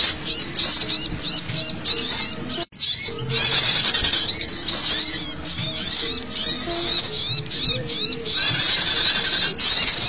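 A recorded chorus of small songbirds, used as a lure call for small wild birds, calling busily and noisily. It is made of rapid high chirps that rise and fall several times a second, mixed with trilling chatter. It cuts out for an instant about a quarter of the way in.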